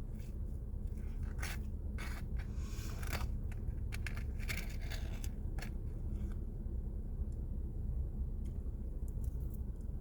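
A run of short scrapes and crackles over a few seconds, stopping about six seconds in, over a steady low hum.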